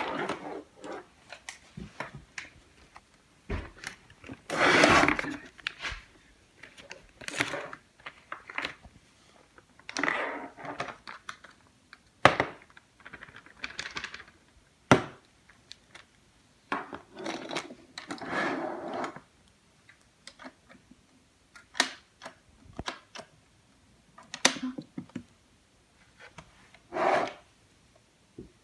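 Thin plastic icing bag crinkling and rustling in irregular bursts as crushed Orbeez are scooped into it, with a few sharp knocks of a small plastic cup.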